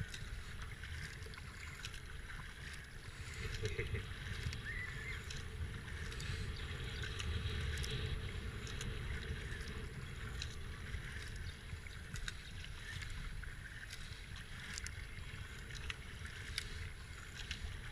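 Kayak being paddled: the double-bladed paddle dipping and splashing, with water washing and dripping and scattered small splashes. A low wind rumble sits on the helmet-mounted camera's microphone.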